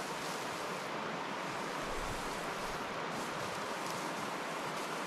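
Steady wind noise outdoors, with a low buffet of wind on the microphone about two seconds in.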